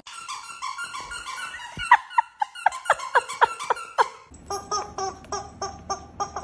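Squeaky dog toy being squeezed and chewed: a run of quick high squeaks falling in pitch, about four a second. About four seconds in it gives way to an even, rhythmic squeaking of the same tone about three times a second.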